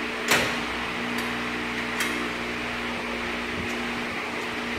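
Sharp metal clicks as parts are fitted by hand to a steel machine stand: the loudest about a third of a second in, a lighter one about two seconds in. A steady hum runs underneath.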